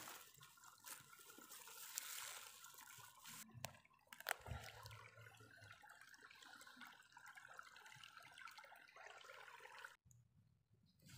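Faint water trickling and lapping, broken by a couple of sharp clicks.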